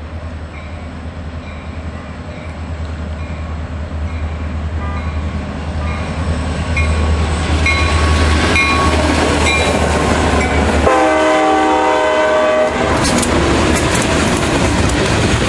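CSX freight train passing close by: the diesel locomotives' engine rumble grows louder as they approach and go past, with a short horn blast about eleven seconds in. After that, tank cars clatter over the rail joints with sharp clicks.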